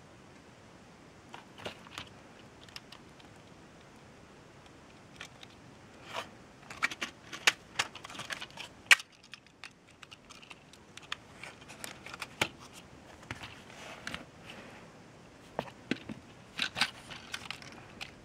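Irregular small clicks, taps and crinkling rustles of objects being handled, sparse at first and thicker in short clusters through the middle and near the end.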